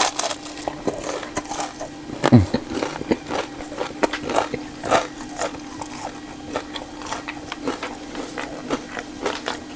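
Close-miked chewing and biting: wet mouth smacks and small clicks scattered throughout, with one louder gulping sound about two seconds in, over a faint steady hum.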